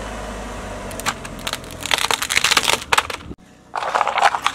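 A car tyre crushing a plastic computer keyboard: after a steady low rumble, a dense run of cracking and snapping as the keys and case break. It breaks off abruptly, and near the end comes a short burst of crunching as disposable cups are flattened under the tyre.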